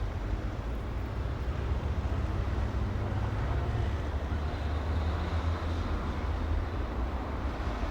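Street traffic ambience: a steady low rumble of passing vehicle engines and tyres, with a faint high whine about halfway through.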